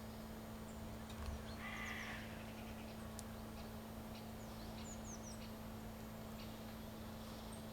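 Faint birdsong: brief high chirps and quick falling whistles, with a short harsher call about a second and a half in, over a low steady hum.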